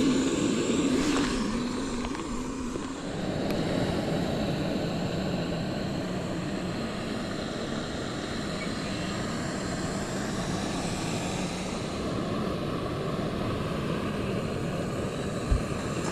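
Portable camp stove burner running steadily under a pot of river water as it comes to the boil.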